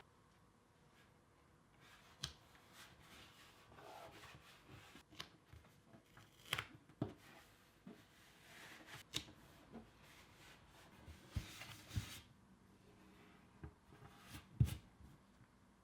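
Faint, scattered small clicks, taps and brief scraping of hand work, with a sharper knock near the end.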